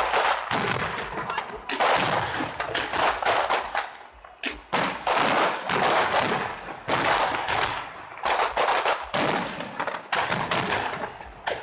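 Fireworks going off in rapid volleys of loud bangs and crackling, coming in several dense bursts with short lulls between them.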